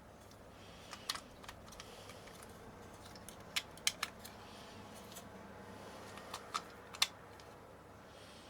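Light, scattered clicks and taps of small hard parts being handled and sorted: about a dozen, irregular, the sharpest in a quick cluster near the middle and one near the end.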